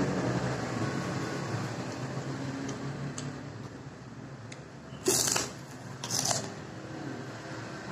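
Crisp krupuk (Indonesian cracker) being bitten: two loud, sharp crunches about a second apart, near the end.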